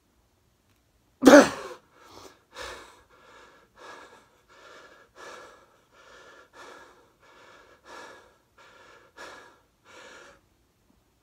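A man panting hard from the effort of a long set of push-ups: one loud, forceful exhale about a second in, then quick, regular breaths, about one and a half a second.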